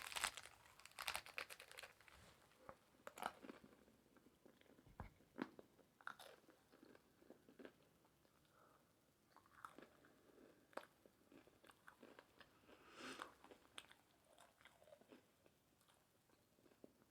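Quiet chewing of a taco: scattered crisp crunches and chewing noises, busiest at the start and again around thirteen seconds in.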